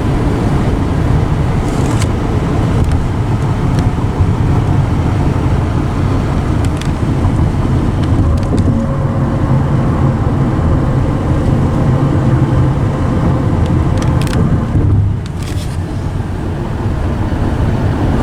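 Road noise inside a moving car: a steady low rumble of tyres and engine, with a dip in level about fifteen seconds in.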